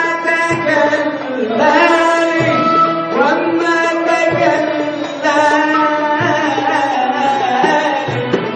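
Arabic band music: an instrumental passage with a melody line gliding between notes over a drum beat.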